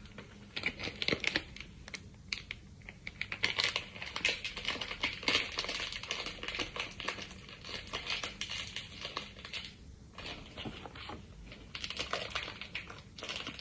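Crinkling and crackling of a Sonny Angel blind-box wrapper being handled and torn open by hand, in irregular bursts of small clicks with short pauses.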